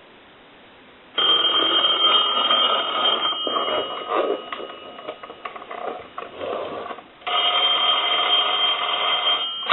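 Conair reproduction desk telephone's ringer ringing, twice, starting about a second in, with the second ring cut off by a click at the end. The ring shows the ringer on/off switch, just turned back on, is working.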